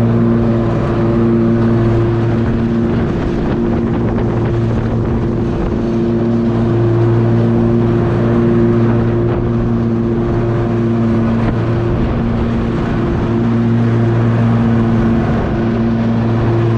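An engine running at a steady speed, a constant low hum that holds unchanged, with some wind noise.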